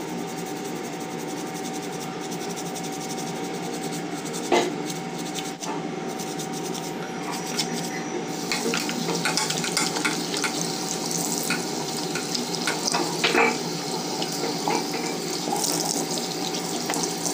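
Tap water running into a washbasin while a toothbrush scrubs silver bangles with toothpaste. The short scratchy brushing strokes grow busier in the second half.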